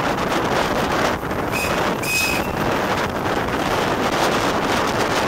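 Steady rush of wind on the microphone over the running noise of a train hauled by the steam locomotive GNR V class 4-4-0 compound No. 85 Merlin, heard from an open window just behind the engine. Two short, high tones sound about one and a half and two seconds in.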